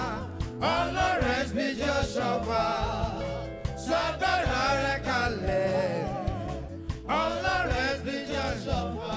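A man singing a gospel worship song into a microphone in long, wavering melismatic lines, over instrumental backing.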